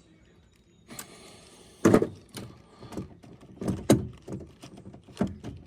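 A string of hard clunks and knocks as the Yamaha Rhino 660's new shift lever is forced against its linkage and will not move out of gear. The owner suspects the brake has to be pressed down before it will shift.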